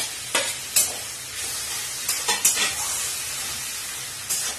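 Onion, garlic and tomato masala sizzling steadily in a metal wok, with about six sharp scrapes and clinks of a spatula against the pan as it is stirred.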